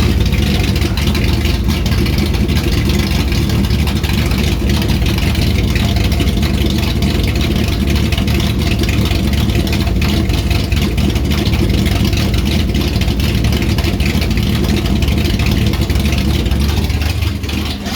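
A 1967 Dodge Charger's V8 running steadily on its first start after a rebuild.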